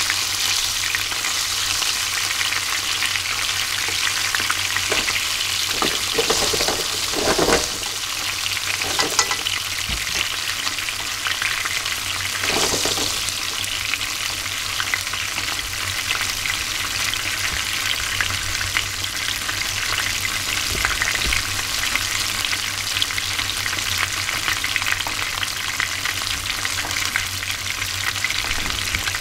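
Chika (Japanese surf smelt) deep-frying whole and unbattered in hot oil: a steady, dense crackle and sizzle, swelling louder for a moment twice.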